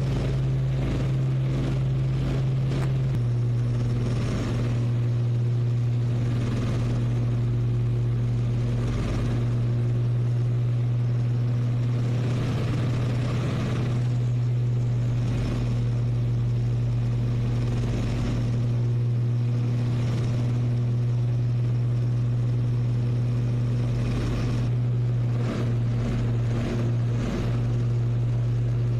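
Twin Rolls-Royce Merlin piston engines of a de Havilland Mosquito running at a steady cruise drone, heard from inside the cockpit in flight with the rush of air over the canopy. The engine note shifts slightly about three seconds in.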